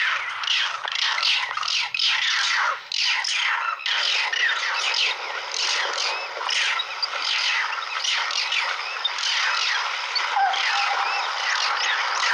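A dense chorus of high-pitched squawking animal calls, many short cries a second, each falling in pitch.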